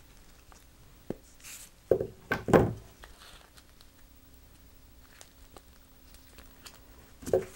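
Handling noises from a twisted-wire puppet armature and wire cutters. There are a few sharp clicks and scrapes about two seconds in, then faint small ticks and rustles as the wire is bent and looped by hand.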